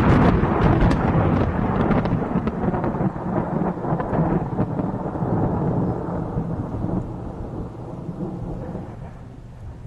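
Thunder rumbling over rain. It is loudest at the start, with sharp crackles, and dies away over the next several seconds.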